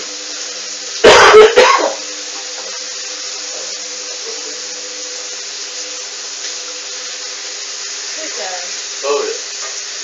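Steady hiss of water running into a Hoover A59 front-loading washing machine, under a low steady hum. About a second in comes a loud, sudden burst in two quick pulses, and faint voices come briefly near the end.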